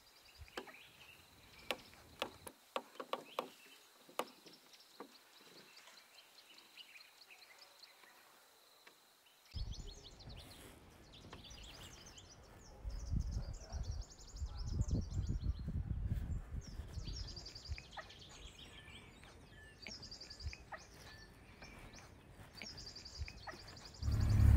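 Quiet bush ambience with birds chirping and calling: scattered sharp chirps over a faint steady high tone at first, then from about ten seconds in a low rumble with repeated high calls. A loud low rumble cuts in near the end.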